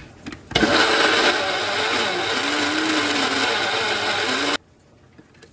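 Electric blender motor running for about four seconds, grinding sesame seeds with oil, mayonnaise and lemon juice into tahini sauce. It starts suddenly about half a second in and cuts off sharply, with a few clicks just before it starts.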